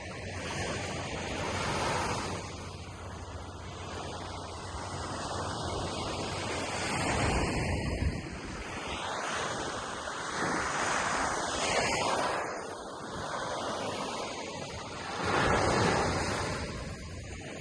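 Small sea waves breaking and washing up a sandy beach, the surf swelling and fading every few seconds, with wind rumbling on the microphone.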